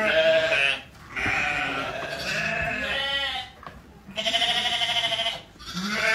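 A flock of sheep bleating, about four long, wavering calls one after another with short breaks between them.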